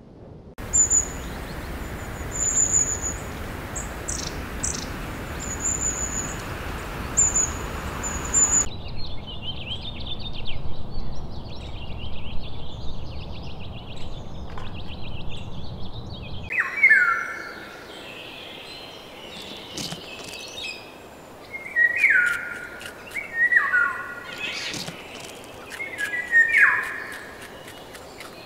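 Birds chirping and calling over outdoor background noise, in three stretches that change abruptly. First come short high chirps, then rapid twittering, then repeated downward-sliding calls with a few sharp clicks.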